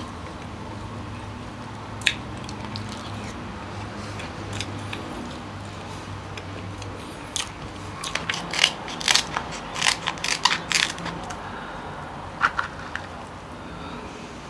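Close-miked mukbang eating sounds: quiet chewing, then a cluster of sharp cracks and clicks from about eight to eleven seconds in, with two more near the end, as steamed king crab shell is cracked and handled.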